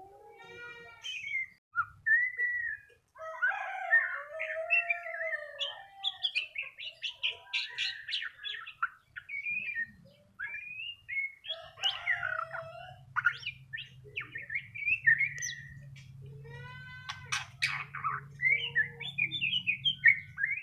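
Young white-rumped shama singing a long, varied song: whistled notes, quick trills and chattering phrases follow one another with short pauses between them.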